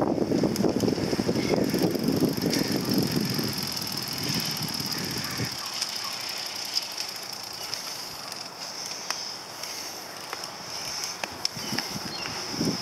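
Bicycle riding noise: wind and tyre rumble for the first five seconds or so, then a quieter roll on an HP Velotechnik Gekko FX recumbent trike, with scattered clicks and ticks from its drivetrain.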